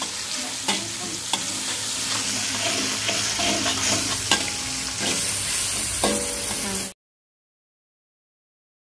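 Ground spice paste of shallot, garlic and chilli sizzling in oil in a wok, with a metal spatula scraping and knocking against the pan as it is stirred. The sound cuts off abruptly about seven seconds in.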